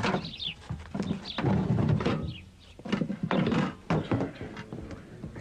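Several dull thuds and knocks, irregularly spaced, over indistinct background noise.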